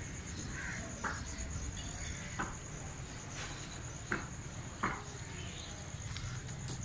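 Steady high-pitched trilling of insects, with a few short knocks about one, two and a half, four and five seconds in.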